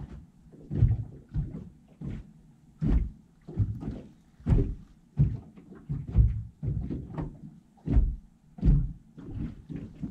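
Irregular dull knocks and thumps, about one or two a second, from handling inside an aluminum jon boat while a hooked fish is being fought.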